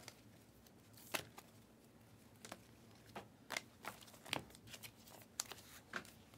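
Trading cards being handled and sorted by hand: a scattering of faint, sharp clicks and snaps, the loudest about a second in and again around four and a half seconds in.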